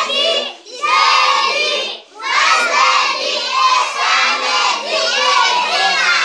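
A group of young children chanting loudly together in unison, with two brief pauses in the first two seconds.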